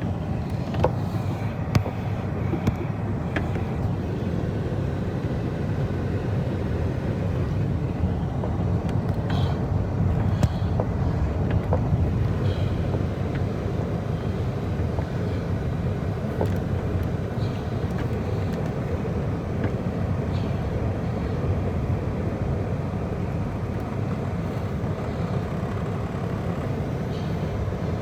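Road vehicle driving, heard from inside the cabin: a steady low rumble of engine and tyre noise, with a few light clicks and rattles.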